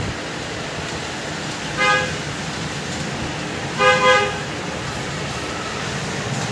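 A horn honking twice, about two seconds apart, the second time as a quick double beep, over a steady background noise.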